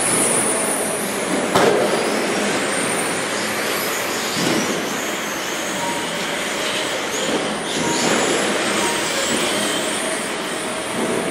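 RC model race trucks lapping an indoor track: high motor whines rising and falling as the trucks pass, over a steady haze of tyre and drivetrain noise. A sharp knock about a second and a half in.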